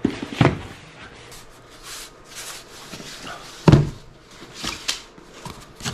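A cardboard box is handled, with two sharp knocks at the start and light rustling and scraping. A louder, heavier thud comes a little under four seconds in as the box is set down on the desk.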